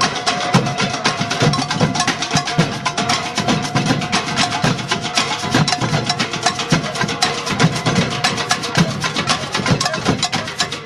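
Fast percussion music: dense, rapid strikes over a recurring low drum beat.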